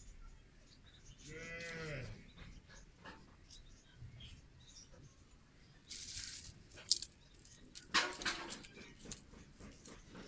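A farm animal calling twice: a wavering call about a second in and another near eight seconds, with rustling and snapping of dry twigs and straw between.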